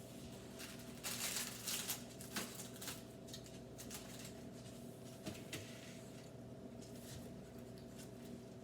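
Faint rustling and light clicks of hands handling food and packaging, with a louder rustle about a second in, over a steady faint hum.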